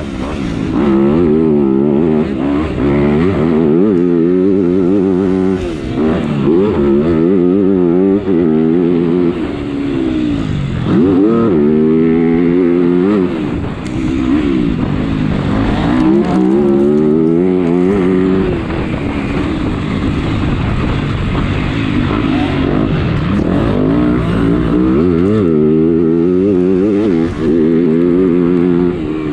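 Motocross bike engine heard from on board while racing, revving hard with its pitch climbing and dropping back again and again as the rider shifts gears and rolls on and off the throttle, with one deep drop and pick-up near the middle.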